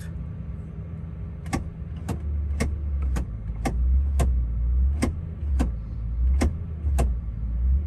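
Toyota Tundra's gear shift lever clicking about ten times, a bit under two a second, as it is moved back and forth between neutral and drive to put the automatic transmission into temperature-monitoring mode. The V8 idles steadily underneath.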